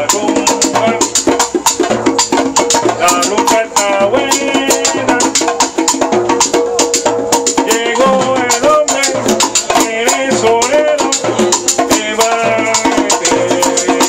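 Live salsa band playing a dense percussion groove of timbales, cymbal and hand drums under a melody line.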